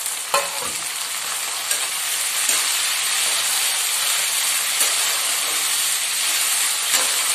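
Chopped tomatoes and onions sizzling in hot oil in a kadhai, a steady frying hiss that grows a little louder after a couple of seconds. A spatula knocks against the pan just under half a second in and clicks a few more times as the mix is stirred.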